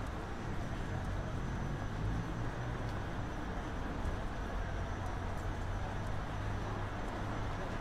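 Steady city street ambience of traffic, with a continuous low engine hum underneath.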